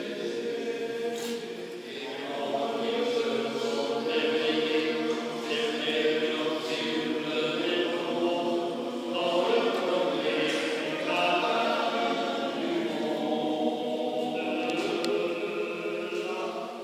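Men's choir singing sustained chords in a church, with a brief break between phrases about two seconds in.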